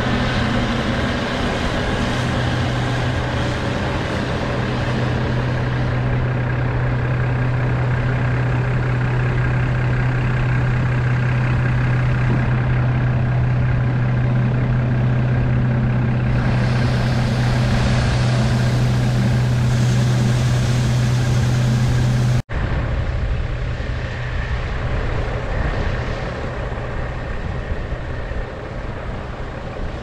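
Case IH Axial-Flow combine running under harvest load, a steady diesel drone with the hum of the threshing machinery. The sound drops a little and changes about two-thirds of the way through.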